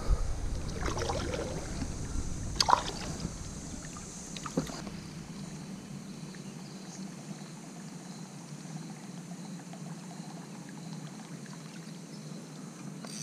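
A few sharp knocks and handling sounds in a canoe in the first five seconds, the loudest about three seconds in, over a low rumble of wind on the microphone. After that only a faint steady background hiss.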